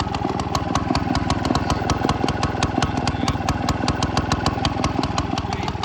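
1947 Frazer rototiller's small engine running steadily, each firing stroke a sharp exhaust pop in a fast, even beat.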